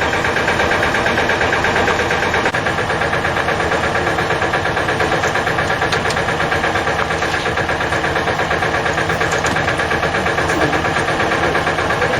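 An engine running steadily at idle with a fast, even throb.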